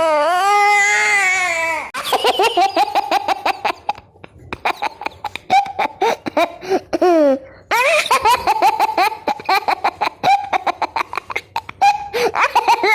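A baby crying in one drawn-out wail for about the first two seconds, then a baby laughing in quick repeated bursts of giggles and squeals.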